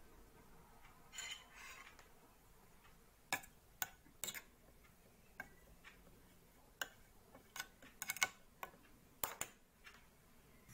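A steel spoon scraping coarsely ground dry masala out of a stainless steel mixer-grinder jar: a short scrape about a second in, then a dozen or so sharp clinks and taps of spoon on steel from about three seconds in.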